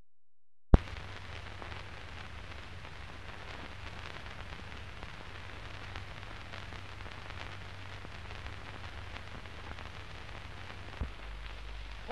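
Surface noise of an old film's optical soundtrack with no programme sound on it: steady hiss and fine crackle over a low hum. It starts with a sharp click under a second in, and there is a small pop about 11 seconds in.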